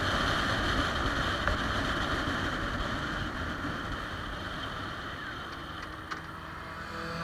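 Wind rush and engine drone of a Triumph Rocket 3 Touring cruising at road speed, heard from a camera on its handlebars, gradually getting a little quieter.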